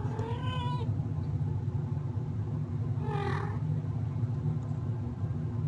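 Kitten meowing twice, a short high call right at the start and another about three seconds in, over a steady low hum.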